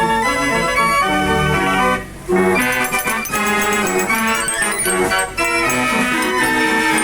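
Music played on an organ-like keyboard, with held chords that change every second or so and two brief breaks.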